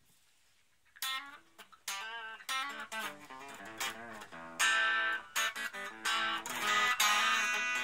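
Electric guitar played through a Raizin "60s Vintage Tweed" effects pedal: a run of single notes and chords starting about a second in, ringing out longer and louder in the second half.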